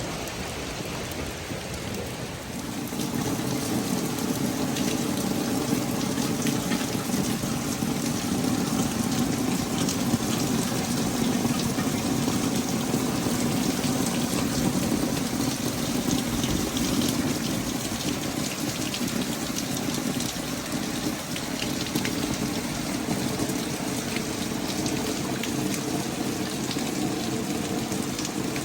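Steady rain falling and splashing on hard surfaces, with a low, even rumble joining it about three seconds in.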